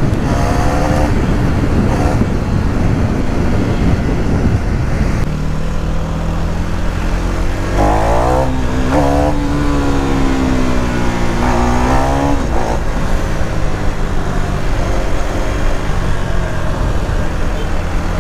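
KTM Duke 390 Gen3 single-cylinder engine running on the move, with wind noise on the microphone. About five seconds in the engine note steadies, and from about eight to twelve seconds in it rises and then falls as the revs go up and down.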